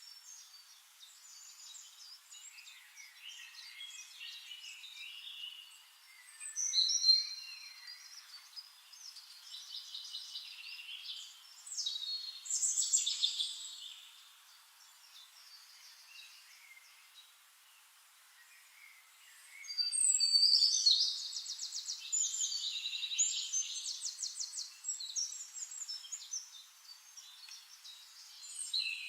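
Small songbirds chirping and singing in high twittering phrases and quick trills. The song thins out to a lull past the middle, then comes back busier and louder.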